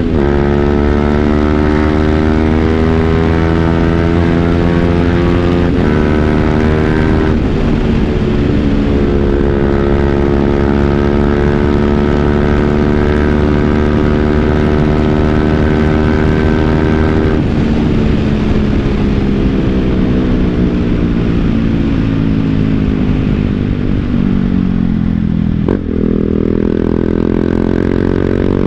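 BMW G 310 GS single-cylinder engine running through an Akrapovic full-system exhaust while riding, the revs drifting down slowly with a few sudden changes in pitch as gears change. Near the end the revs fall further, there is a sharp click, and the engine picks up again.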